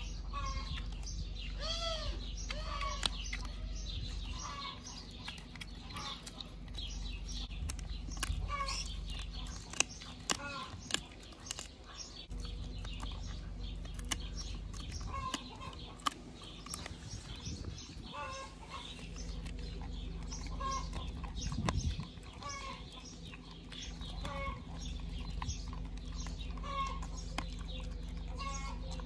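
Hens clucking repeatedly in short calls, with a husky chewing a beef chew strip up close and a few sharp clicks and crunches around the middle. A steady low rumble lies underneath.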